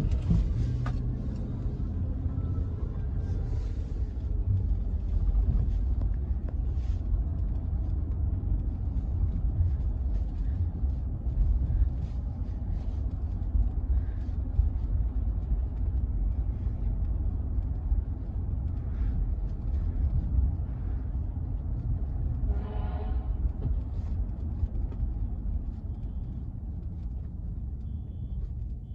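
Steady low rumble of a vehicle, with a brief pitched sound about three-quarters of the way through.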